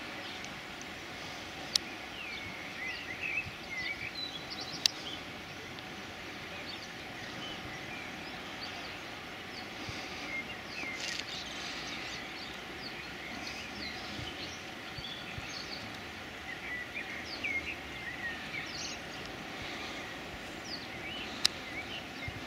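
Outdoor ambience: a steady background hiss with many small birds chirping in short rising and falling notes throughout. Three sharp clicks stand out, about two seconds in, about five seconds in, and near the end.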